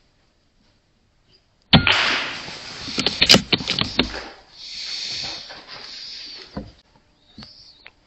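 A single shot from a .22 pre-charged air rifle, sudden and loud, about two seconds in. A few sharp clicks and a stretch of high hissing noise follow.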